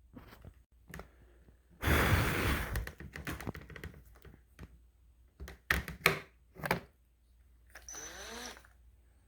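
Workshop handling noises: a loud spell of cutting or whirring noise about two seconds in, then several sharp knocks, and near the end a brief burst in which a small motor spins up with a rising whine, like a cordless drill briefly run.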